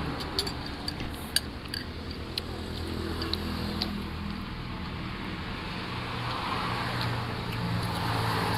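Metal spoons and forks clinking against ceramic soup bowls, several sharp clinks in the first few seconds, over a steady low engine hum that builds from about three seconds in.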